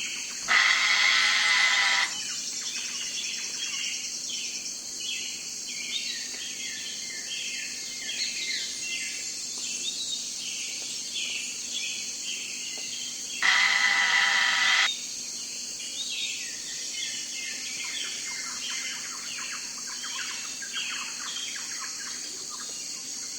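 Many birds chirping and twittering over a steady high hiss, broken twice by a loud, harsh, pitched call about a second and a half long: once near the start and once about halfway through.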